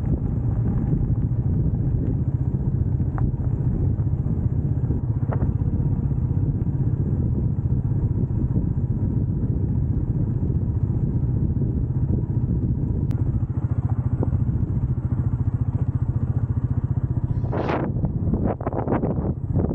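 Royal Enfield Meteor 350's single-cylinder engine running steadily under way, with a few short, sharper sounds near the end.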